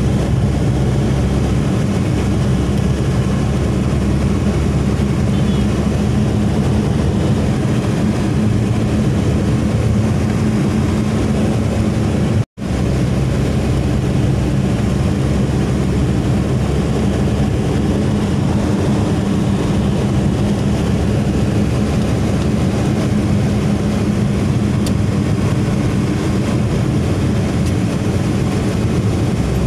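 Steady engine hum and road noise inside a car cruising at constant speed on a highway. The sound cuts out completely for a moment about twelve seconds in, then resumes unchanged.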